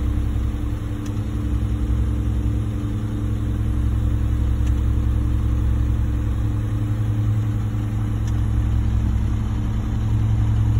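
Concrete mixer truck's diesel engine idling steadily, with a faint high tick repeating about every three and a half seconds.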